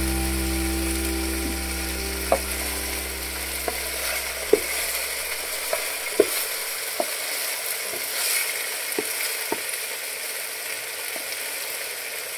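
Whole snakehead fish frying in a pot of hot oil: a steady sizzle with sharp clicks every second or so.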